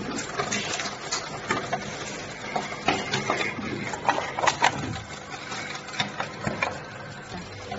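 Automatic press capping machine and its bottle conveyor running with a steady faint hum, with irregular clicks and knocks about one to two a second as plastic cooking-oil bottles move through and are capped.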